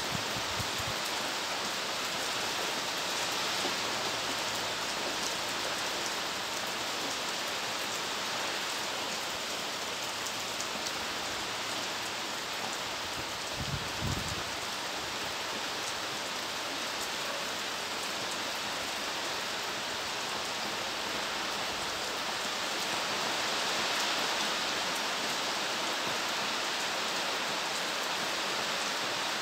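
Steady rain falling, an even hiss speckled with many small drop hits. About halfway through there is one brief low thump.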